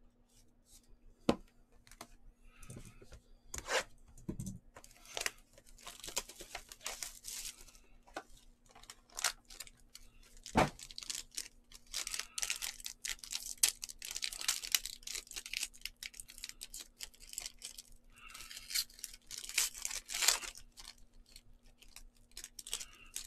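Foil trading-card pack wrapper being torn open and crinkled by hand, in long rustling stretches, with a few sharp clicks from the cards being handled.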